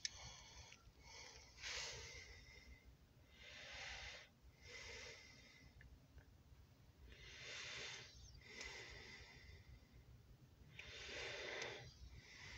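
Faint breathing of a person close by, a soft breath every two to three seconds, over a faint low rumble.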